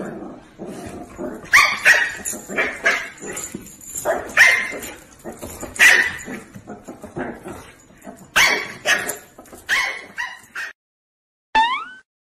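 A small puppy yapping in short, sharp, high yips, a dozen or so irregularly spaced, which stop abruptly about eleven seconds in. Near the end there is one short, rising kitten mew.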